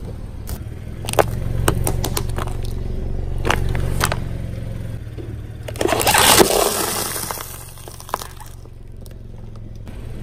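Car tyre rolling over and crushing objects on pavement: scattered crackles and snaps, then a louder crunch about six seconds in, over the low steady hum of the car's engine.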